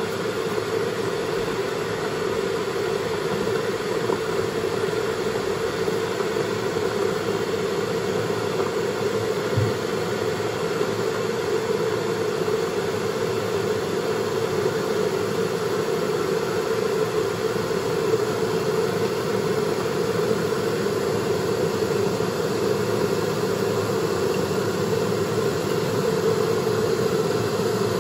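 Electric kettle heating water toward the boil: a steady rushing noise that grows slowly louder.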